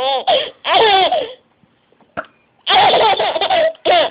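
A baby laughing hard in repeated high-pitched bursts, breaking off for about a second in the middle before laughing again.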